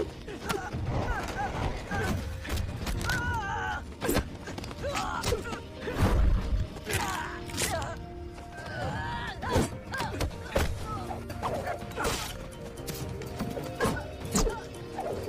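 Film fight sound effects: many sharp punch and strike impacts with grunts and shouts from the fighters, over a music score with held tones.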